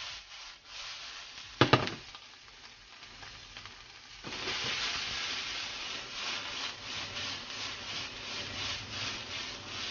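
Raw sausage meat, chili and garlic sizzling in olive oil in a frying pan, with a single sharp knock a little under two seconds in. The sizzling grows louder from about four seconds in, as more raw sausage meat goes into the hot pan and the pan is tossed.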